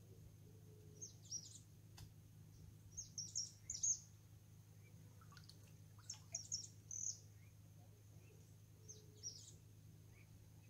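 Small birds chirping in four short bursts of quick, high calls, the loudest just before the four-second mark. A low steady hum runs underneath, from an old diesel motor left running for hours.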